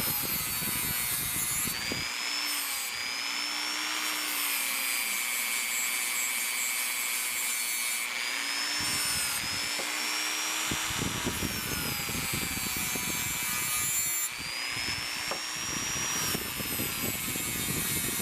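Power tool spinning plastic abrasive bristle wheels against the pitted steel head of a Proto 1/4-inch drive ratchet, cleaning up around the switch. A high motor whine dips and climbs back again and again over a steady scrubbing rasp.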